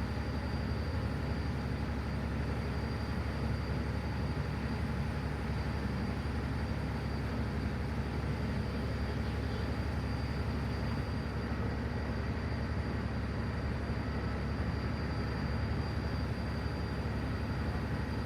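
Ferry boat under way: a steady low engine drone with a faint, even high whine above it.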